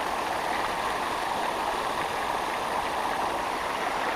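Creek water running, a steady, even wash of flowing water.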